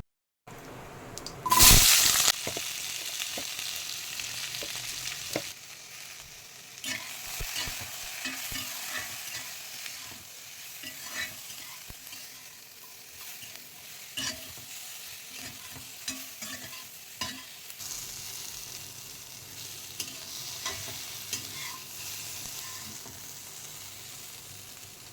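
Food sizzling in hot oil in a pan while being stirred, with the scrape and clack of a spatula against the pan now and then. A loud burst of sizzling about two seconds in.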